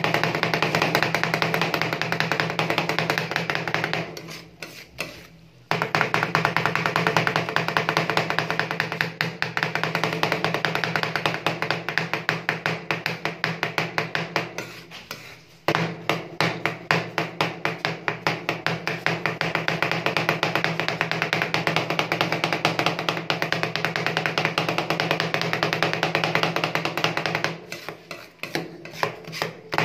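Two metal spatulas rapidly chopping and clacking against a frozen steel plate as banana is cut into rolled-ice-cream base, with a few brief pauses, over a steady machine hum.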